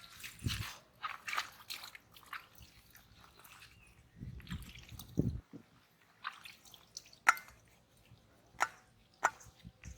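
Small splashes and drips of muddy water with scattered sharp clicks, the loudest about seven seconds in and two more shortly after.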